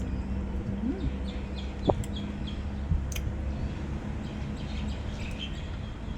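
Birds chirping in short calls over a steady low background hum, with a single thump about two seconds in.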